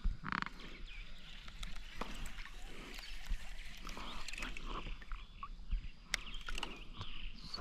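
Fishing from a kayak: scattered light clicks, knocks and small water splashes as a topwater walk-the-dog lure is cast and worked across the surface.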